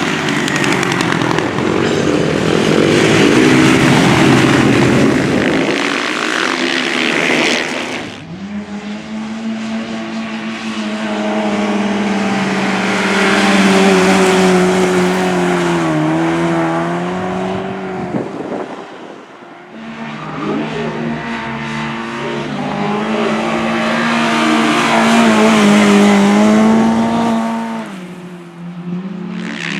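Speedway motorcycles racing on a cinder track, several engines running hard together. A dense, noisy pass fills the first eight seconds. Then the engine notes dip and climb again around the bends, ease off briefly, and rise once more.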